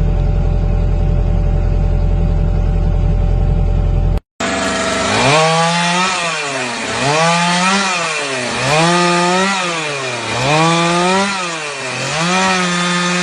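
A steady low machine hum, then after a brief cut a power-tool motor whose pitch rises and falls over and over, about every second and a half, over a rasping hiss.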